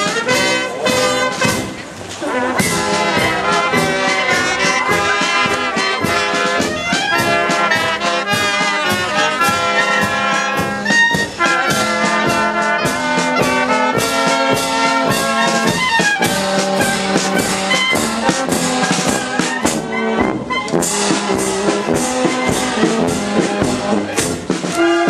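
Marching brass band playing: trombones and trumpets carry the tune over a steady beat.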